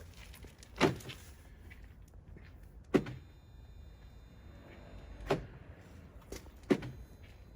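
Four short, sharp clunks at uneven gaps of roughly one and a half to two seconds; the third is a little quieter than the others.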